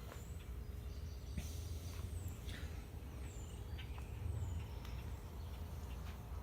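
Panasonic 16-inch oscillating table fan running on its low setting, turning slowly in the cold: a steady low rush of air with a faint steady motor hum. Birds chirp in the background, several short falling chirps in the middle, and there are a few faint clicks.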